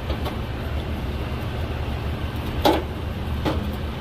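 Steady low hum with two short knocks, about two and a half and three and a half seconds in, as a part is handled.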